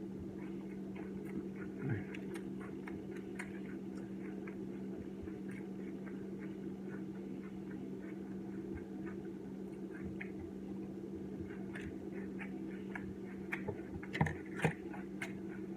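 A steady low electrical hum with faint small clicks and taps scattered through it, typical of food and packaging being handled during a meal, and a few louder knocks about fourteen seconds in.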